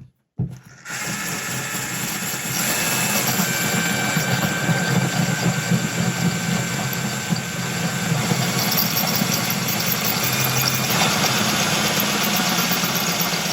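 Power drill with a Bosch CYL-9 Ceramic tile bit running steadily, grinding into a glazed ceramic wall tile. It starts about half a second in and gets a little louder about two and a half seconds in.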